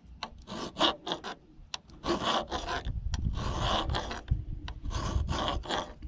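Flat file rasping on steel in quick back-and-forth strokes, about two or three a second, dressing rounded hex edges so a wrench will fit.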